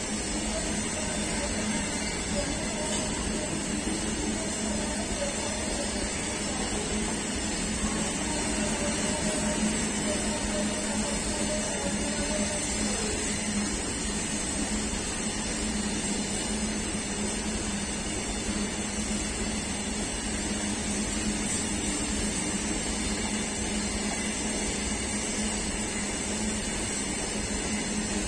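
A long freight train of covered goods wagons rolling past, a steady noise of wheels on the rails.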